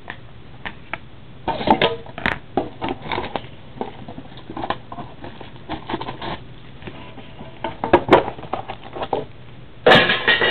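Card packaging being handled: irregular clicks, taps and scratchy crinkles of a shiny wrapped trading-card pack and cards in the hands, with a louder burst of crinkling near the end.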